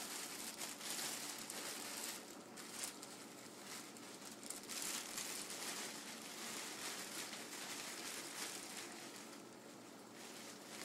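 Clear plastic sterile microscope drape crinkling and rustling as it is bunched up and gathered by hand, an uneven crackle that eases off a little near the end.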